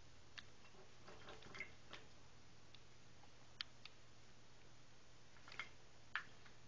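Mostly quiet, with a handful of faint, irregular clicks and ticks from a small pet bird bathing in water.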